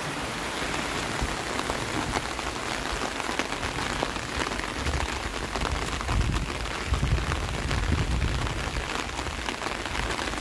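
Heavy rain falling on a tin roof: a dense, steady hiss of drops, with a low rumble from about five to nine seconds in.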